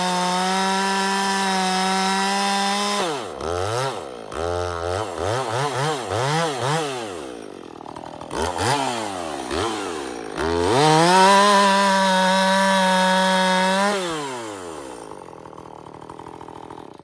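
Husqvarna 450 two-stroke chainsaw held at full throttle for about three seconds, then revved up and down over and over for several seconds. It goes back to full throttle for a few more seconds, then winds down and fades near the end.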